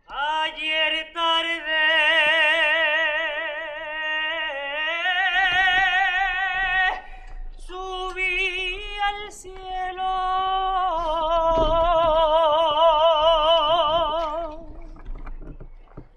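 A solo voice singing a malagueña unaccompanied, long held notes with a wide vibrato and ornamented turns between them, with a short break between phrases about seven seconds in and the voice fading near the end.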